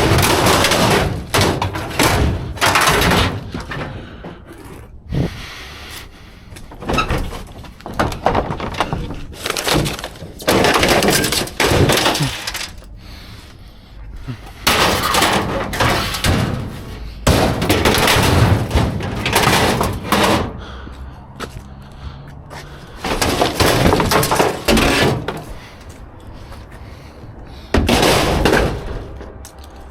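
Repeated crashing and clattering of scrap and junk being pulled out and tossed around in a dumpster, in irregular bursts with short pauses between.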